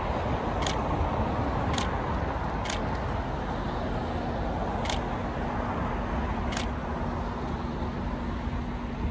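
Steady distant rumble of airport and road traffic across the airfield. Five sharp high ticks come at irregular gaps of one to two seconds, and a steady low hum joins about four seconds in.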